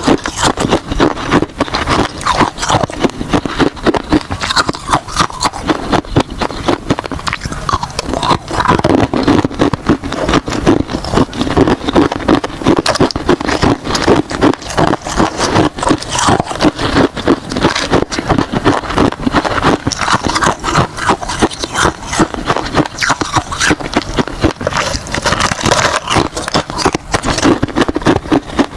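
Ice being bitten and crunched between the teeth: a continuous, irregular run of loud crackling crunches, several a second.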